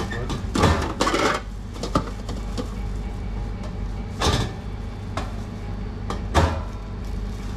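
Sandwich toppings being laid on by plastic-gloved hands at a food counter: about five short clatters and rustles over a steady low hum.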